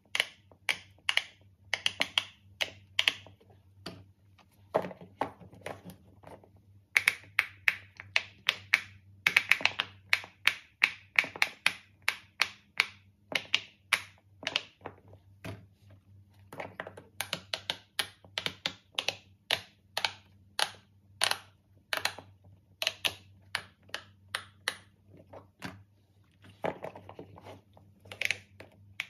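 Silicone pop-it fidget toys being pressed by fingers, the bubbles popping through with sharp clicks in quick irregular runs of several a second, with brief pauses between runs.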